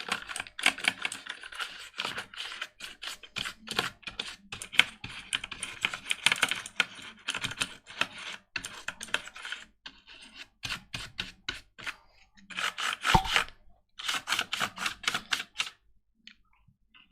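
Computer keyboard being scrubbed clean between its keys: rapid clicking and rattling of the keys over a scratchy scrubbing sound, in dense runs that break into shorter bursts with brief pauses in the second half.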